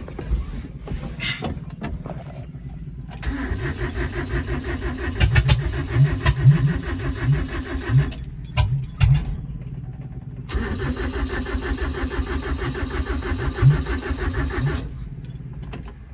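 Toyota 20R four-cylinder engine cranked by the starter in two long bouts with a pause between, giving a few uneven firings without starting. The Weber carburettor's electric choke is not yet hooked up.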